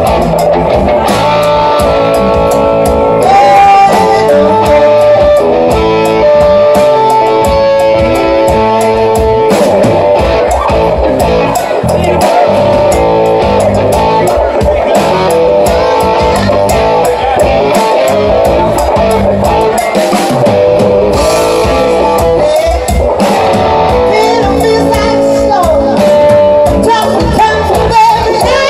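Live band playing: electric guitars, bass guitar and drum kit, with a woman singing into a microphone and the electric guitar to the fore.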